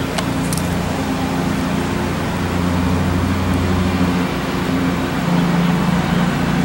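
Steady low engine hum under an even hiss, with a couple of faint clicks just after the start.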